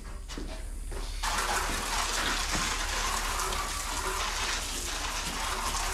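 Aerosol can of wasp spray hissing as it shoots a long jet, steady from about a second in.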